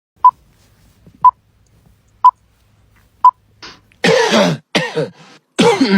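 Four short, high electronic beeps, evenly spaced a second apart, then a person's voice for the last two seconds.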